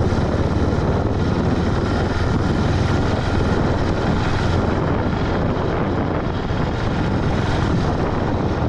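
Husqvarna Vitpilen 701's single-cylinder engine running steadily as the motorcycle rides along, with wind noise on the microphone.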